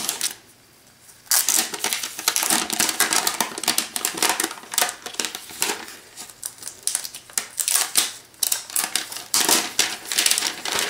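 Clear protective plastic wrap being peeled off a new tablet and crumpled in the hands: a dense, irregular crinkling and crackling that starts about a second in.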